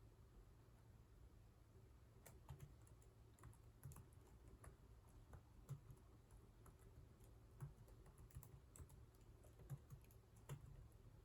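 Computer keyboard typing: faint, irregular keystrokes that begin about two seconds in, over a low steady hum.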